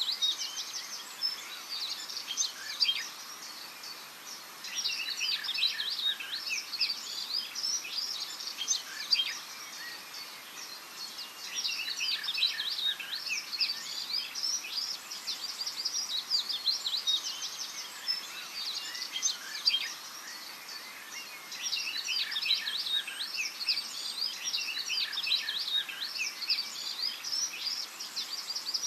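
Small songbirds chirping and singing in bouts of a few seconds each, many quick high notes packed together, over a faint steady outdoor hiss.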